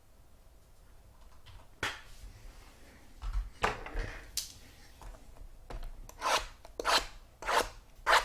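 Cardboard packaging of a trading-card box being opened and handled: about eight short rasping scrapes and rubs, coming closer together in the second half.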